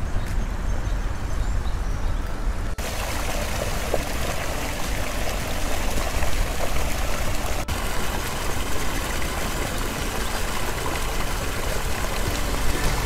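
Creek water running over rocks, then, from about three seconds in, water pouring from a large rusty culvert pipe and splashing into the creek, brighter and louder, over a steady low rumble.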